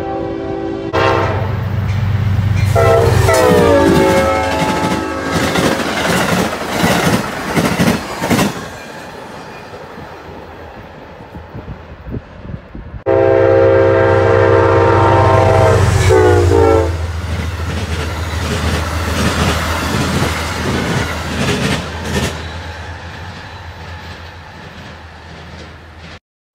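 Diesel locomotive horns at grade crossings. A CSX freight locomotive sounds its multi-note horn, which drops in pitch as it passes, followed by the wheels clattering over the rails. About 13 seconds in, a second train's horn starts suddenly and drops in pitch as it goes by, over a low engine drone, and the passing cars fade away.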